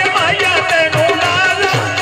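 Live Punjabi folk music: a wavering, ornamented melody over a steady drum beat.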